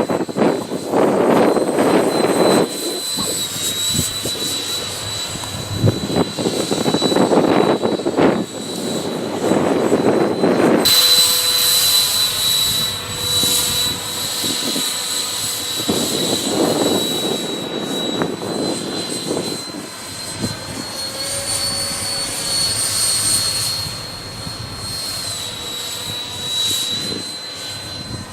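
Electric ducted fan of an RC model plane (a 64 mm eight-blade fan on a brushless motor) whining steadily at a high pitch, the pitch dipping and rising a little, louder from about a third of the way through. Strong wind buffets the microphone in gusts.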